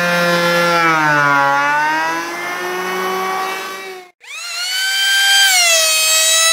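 Makita electric hand planer running and shaving a wooden slab, its motor whine dipping in pitch and recovering as the blades bite about a second and a half in. The sound cuts off abruptly about four seconds in, then a higher whine quickly rises and holds steady with another small dip as the planer is run again.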